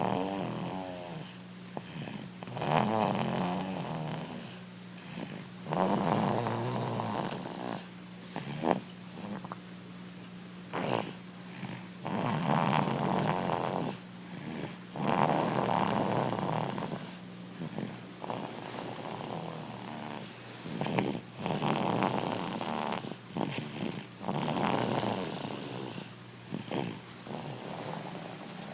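Loud snoring: long snores repeating every three or so seconds, with a few short sharp snorts between them, over a steady low hum.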